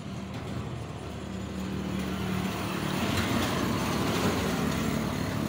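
A motor vehicle engine running steadily and growing louder.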